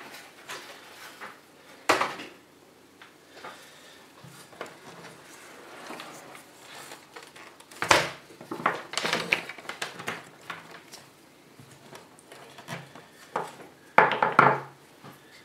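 Knocks and clatter of an opened flat-screen TV's plastic case being handled and turned round on a wooden table: a sharp knock about two seconds in, a loud knock partway through followed by a run of rattles, and a cluster of knocks near the end.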